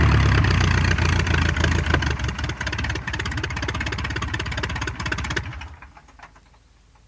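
De Havilland Tiger Moth's single four-cylinder Gipsy Major piston engine, heard from outside, running down after switch-off: its firing beats slow and spread apart as it fades. About five and a half seconds in it dies away to a few faint last knocks.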